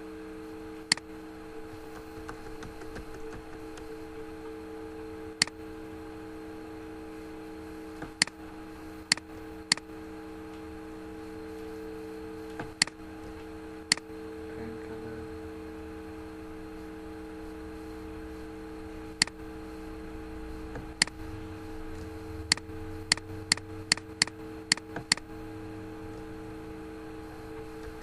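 Computer mouse clicks: single sharp clicks every few seconds, then a quick run of about eight clicks near the end, over a steady low hum.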